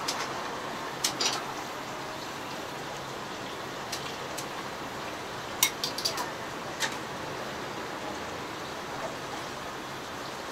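Kitchen clatter of soba being plated: a few sharp clinks and knocks of a metal noodle strainer, pots and a ceramic bowl, bunched together a little past the middle, over a steady hiss of kitchen background noise.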